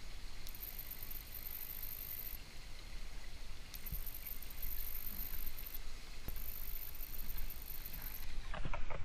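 Steady rush of a rocky stream's rapids, with a few small splashes and knocks as hands handle a brown trout in a landing net in the water, several of them close together near the end.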